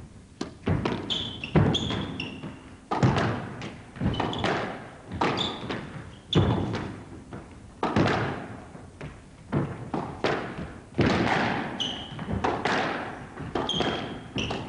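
A fast squash rally: the ball is struck by rackets and smacks off the court walls, one or two echoing hits a second, with short high squeaks of court shoes on the floor between the hits.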